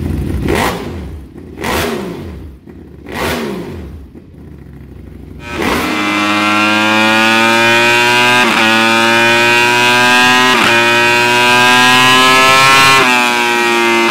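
90-degree V4 superbike engine revving through a twin-silencer SC Project exhaust. In the first few seconds there are three short throttle blips, each falling away. From about six seconds in the engine is held at high revs with a steady, slowly rising pitch, dipping briefly three times.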